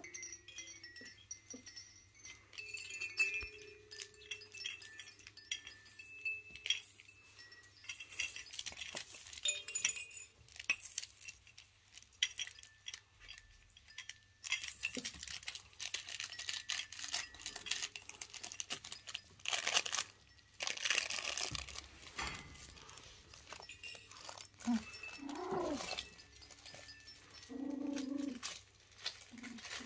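Hanging rattle toys of a baby play gym clinking and jingling as puppies play with them, along with rustling and scrabbling on the mat. Near the end come a few short, high squeaks from the four-week-old kooikerhondje puppies.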